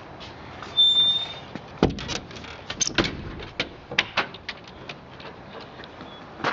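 Irregular knocks and clicks, with a brief high squeak about a second in.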